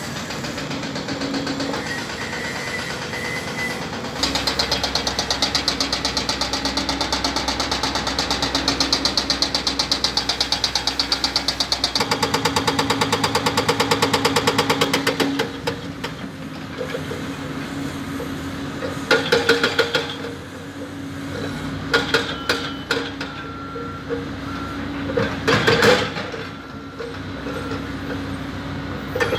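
An engine running steadily, with a fast regular pulsing between about four and fifteen seconds in, then several short, loud noises near the end.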